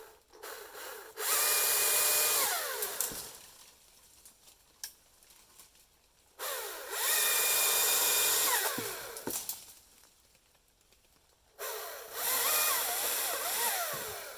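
Battery-powered power tool motor run three times in short bursts of two to three seconds each. Each time it spins up quickly, runs at speed, then winds down to a stop, with quiet gaps between runs.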